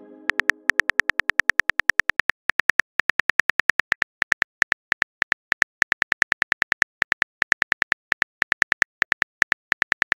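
Smartphone keyboard typing clicks, rapid and slightly uneven at about seven a second, one for each letter typed into a message. A musical chime fades out just as they begin.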